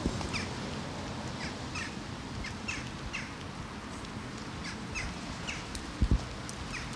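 Small birds chirping: many short, high, falling chirps repeated throughout, over a low outdoor rumble. Two brief low thumps about six seconds in.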